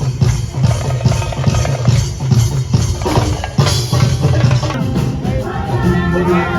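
Live percussion troupe drumming a fast, driving rhythm on drums. Near the end, held pitched notes of backing music come in over the drums.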